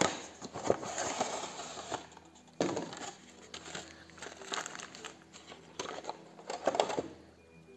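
Crinkling of a small clear plastic bag of plastic rings, along with the rustle of a cardboard box and plastic miniatures tray being handled, in several bursts that stop about seven seconds in.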